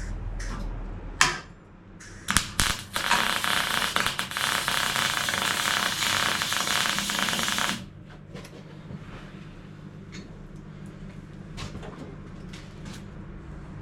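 Welding on a steel car sill panel: a couple of brief crackling tacks, then a continuous arc crackle for about five seconds that stops abruptly, followed by faint clicks of metal being handled.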